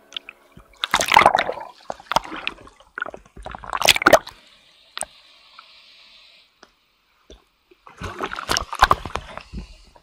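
Sea water sloshing and splashing over a camera held at the surface in choppy waves, in three bursts: about a second in, around four seconds, and again from about eight seconds, with quieter stretches between.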